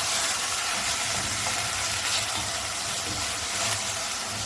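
Ground beef sizzling as it fries in a pan, a steady hiss.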